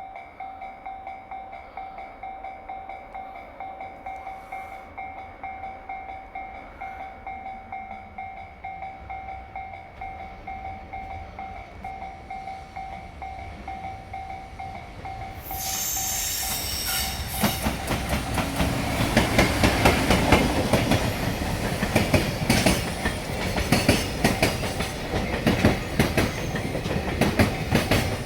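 A level crossing warning bell rings in steady repeated dings. About halfway through, a JR Freight EF210 electric locomotive hauling a train of container wagons arrives and passes, much louder. The wheels clatter hard over the rail joints.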